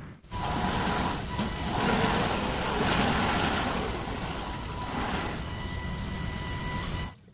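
Homemade RC hydraulic bulldozer running: its hydraulic pump whines at a steady pitch over a rough mechanical rattle as the machine works. The sound starts and stops abruptly.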